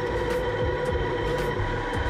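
Conventional metal lathe running under power, turning a stainless steel tube, with a steady gear whine over a low rumble.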